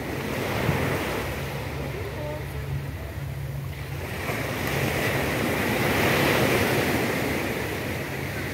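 Small waves breaking and washing up on a sandy beach. A louder wash of surf swells up past halfway, peaks about six seconds in, then fades.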